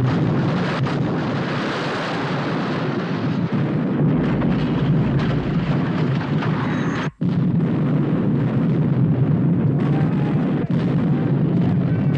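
Battle din of sailing warships' muzzle-loading cannons firing, a loud continuous rumble of gunfire and explosions. The sound drops out for a moment about seven seconds in, then resumes.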